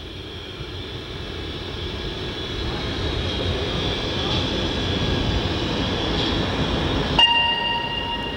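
Road noise heard from inside a tour bus cruising on a motorway: a steady rumble of engine and tyres that slowly grows louder. Near the end a steady high tone sets in over it.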